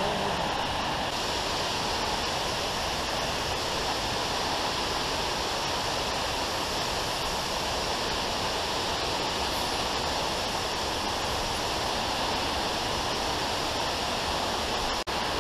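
Waterfall rushing steadily, an even wash of falling-water noise. The sound drops out for an instant near the end.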